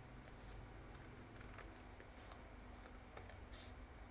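Scissors snipping through a sheet of stiffened fabric, a series of faint, short clicks as a thin edge strip is cut off.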